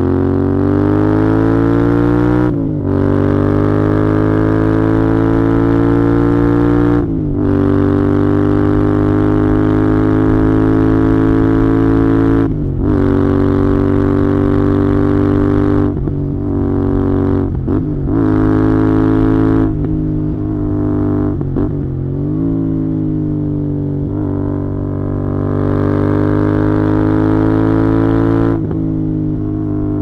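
Royal Enfield Interceptor 650's 648 cc parallel-twin engine and exhaust under way, pulling up through the gears: the pitch climbs in each gear and drops at each upshift, four times in the first half. Around two-thirds through it backs off briefly, then pulls again and holds a steady pitch before one more shift near the end.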